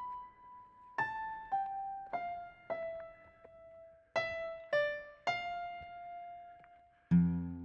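Background music: a slow melody of single piano notes, struck about every half second to second and stepping downward in pitch, each left to ring and fade. A low, fuller chord comes in near the end.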